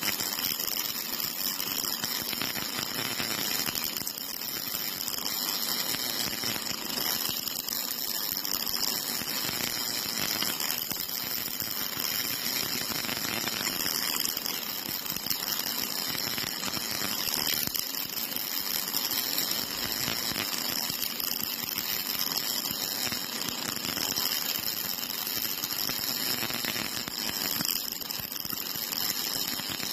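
MIG welding arc crackling and hissing steadily as a robot-held torch lays a continuous seam on steel, with sparks of spatter.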